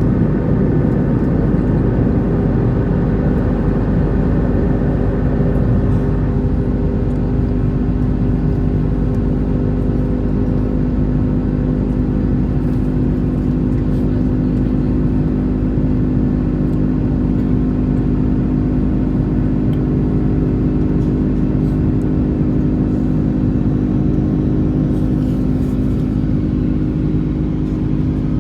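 Airbus A330-300 jet engines heard from inside the cabin: a steady loud drone with several held tones over a low rumble. About six seconds in, the higher part of the noise drops away.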